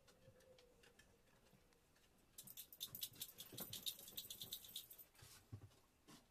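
A rapid rattle of many quick clicks lasting about two and a half seconds, starting a couple of seconds in, followed by a few fainter clicks.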